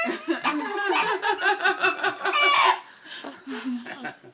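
A run of quick, high-pitched laughter lasting about two and a half seconds, then fainter scattered voice sounds.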